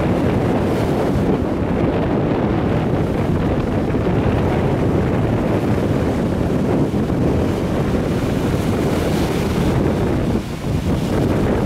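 Strong wind buffeting the microphone with a loud low rumble, over small sea waves breaking and washing up a sandy shore. There is a brief lull in the wind about ten seconds in.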